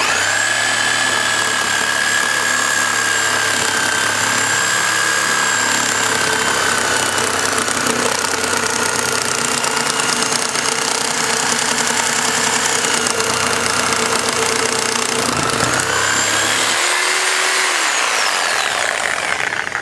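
Corded reciprocating saw running continuously, its long blade cutting through a car tire's rubber and internal steel toward the aluminum rim. The motor's whine starts abruptly, sags and climbs back about fifteen seconds in, then cuts off.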